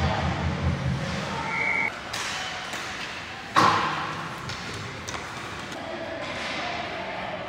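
Youth ice hockey play in an echoing arena: sticks and puck clacking on the ice, with one loud bang and ringing echo about three and a half seconds in.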